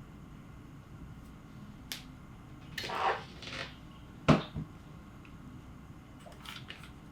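Sparse sounds at a mechanical keyboard with lubed Gateron CJ switches rather than steady typing: a single click, a short scraping rustle about three seconds in, then one heavy knock a little after four seconds, the loudest sound, followed by a few light clicks near the end.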